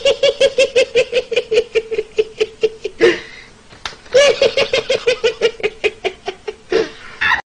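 A person laughing in a long string of quick, even 'ha-ha-ha' beats, about five a second, breaking off about three seconds in and starting again a second later for nearly three more seconds.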